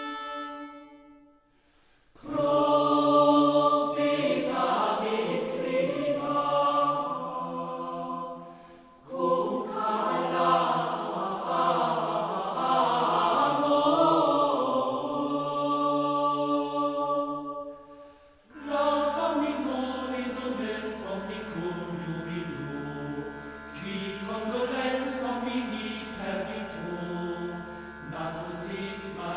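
Choral music with long, slowly shifting held notes. It drops away and comes back in three times, and a steady low drone joins about two-thirds of the way through.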